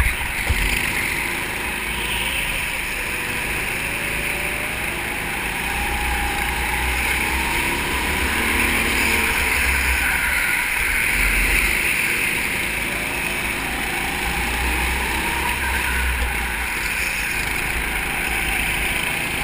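A go-kart engine running at speed, heard from the driver's seat, its pitch rising and falling with the throttle through the corners.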